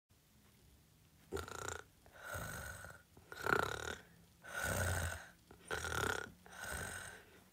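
A person imitating snoring for a sleeping puppet: six drawn-out snores, each under a second, about a second apart.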